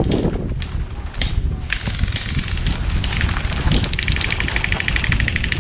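Airsoft guns firing: a few single shots, then from about two seconds in, rapid clicking fire that settles into a full-auto rattle of about fifteen shots a second near the end. Wind rumbles on the microphone underneath.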